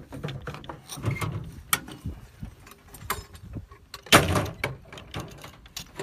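Clanks, knocks and scraping as the mortar's tube and baseplate are worked on in the dirt by hand, with one louder thump about four seconds in.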